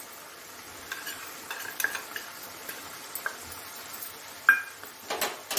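Tomato curry simmering gently in a nonstick frying pan, with scattered light clicks and scrapes of a spoon and two louder metal clinks near the end as spice powders are spooned in.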